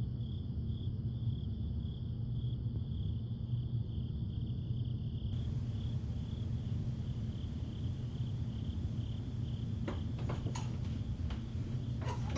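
Crickets chirping in a steady, even pulse over a constant low hum, with a few sharp clicks near the end.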